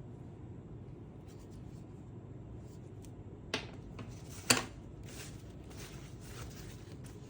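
Light handling and rubbing sounds with two sharp clicks, about three and a half and four and a half seconds in, the second the louder, then a few soft ticks, over a steady low hum.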